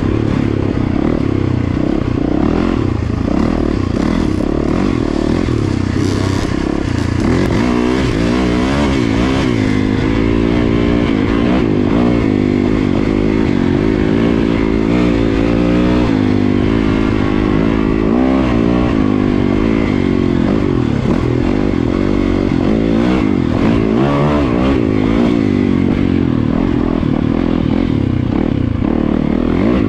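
Yamaha dirt bike's engine running under the rider, its note rising and falling over and over as the throttle is worked along the trail.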